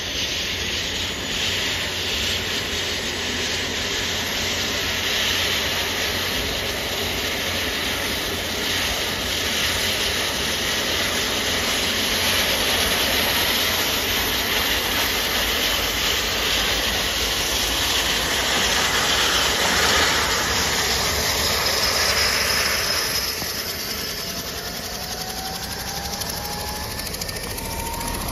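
Leonardo AW109SP helicopter running on the ground with its main rotor turning: a loud, steady turbine hiss and rush from its twin turboshaft engines, with a faint whine rising in pitch near the end.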